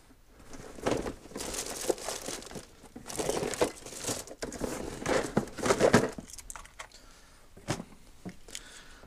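Someone rummaging through spare parts, with irregular crinkling and rustling and a few light knocks and clicks; busiest in the first six seconds or so, then only scattered clicks.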